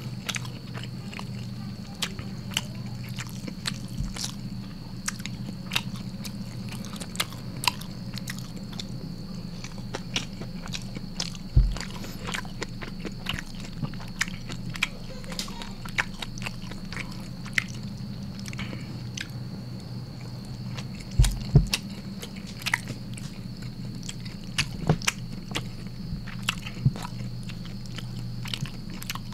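Close-miked chewing and lip-smacking of rice, beef rendang and squid eaten by hand, a steady run of small wet clicks. There are two louder knocks, about a third and two-thirds of the way through, over a steady low hum and a faint high whine.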